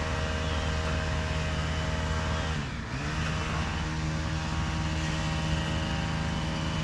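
An engine running at steady speed. About three seconds in its pitch drops briefly, then it picks back up.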